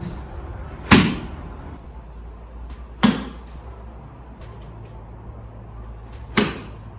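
Golf clubs striking balls: three sharp cracks about two and three seconds apart, each with a short ringing tail, over a steady low hum.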